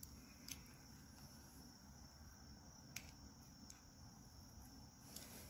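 Near silence: crickets chirring faintly and steadily in the background, with a few light ticks from a utility knife blade scoring painter's tape on a dumbbell's painted end.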